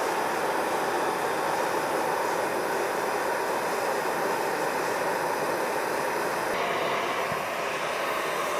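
Two handheld propane torches burning with a steady rushing hiss, their flames playing on the tang of a hardened steel knife blade to draw out its hardness. The hiss starts abruptly and holds even, easing slightly in its upper range a little past halfway.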